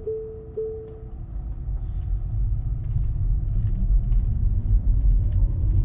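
Low road and tyre rumble of a Tesla Model 3 Performance driving, with no engine note, swelling in loudness after the first second. A few steady electronic-sounding tones fade out within the first second.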